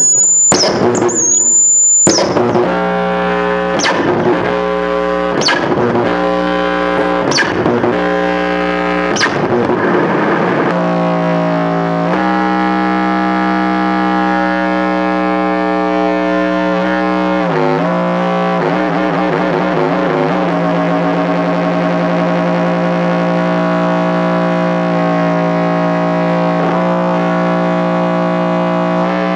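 Noise music: a loud, distorted drone holding one low pitch with many overtones. For the first ten seconds it is struck anew about every second and a half with a sharp attack, then it holds steady, dipping and wavering in pitch around the middle.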